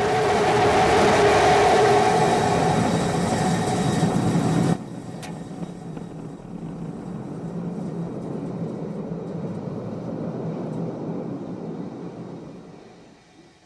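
Roar of Starship SN11's Raptor engine firing for the landing burn, loud and steady with a faint tone in it. About five seconds in it cuts off abruptly to a quieter rumble that fades away near the end.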